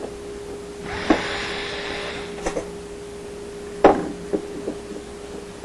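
Hand work on a dishwasher's aluminized metal panel and its screws: about a second and a half of scraping rustle, then a few light clicks and one sharper knock, over a faint steady hum.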